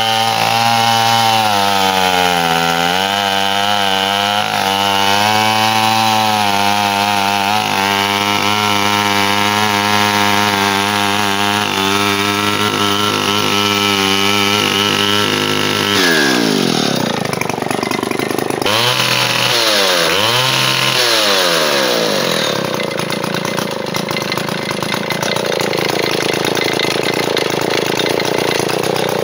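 Vintage Stihl Contra two-stroke chainsaw idling steadily, then its engine speed swinging up and down sharply from about sixteen seconds in and running faster and unevenly toward the end.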